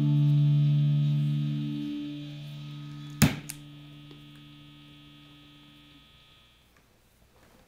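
Stratocaster chord through an MXR Phase 90 phaser and Fender Bassman amp, ringing out with a slow swell and dip as it sustains, then fading away by about six seconds. A sharp click comes a little over three seconds in.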